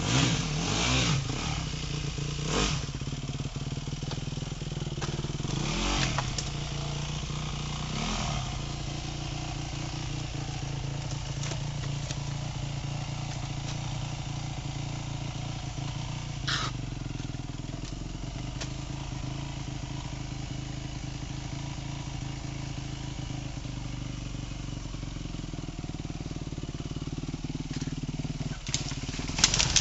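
Yamaha WR250F enduro motorcycle's 250 cc single-cylinder four-stroke engine running. It is revved up and down a few times in the first eight seconds, then runs steadily. A few knocks and a burst of clatter come near the end.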